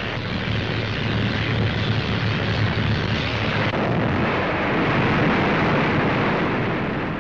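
Steam catapult launching a test load: a long, steady rushing roar of steam, swelling slightly about five seconds in and easing off near the end.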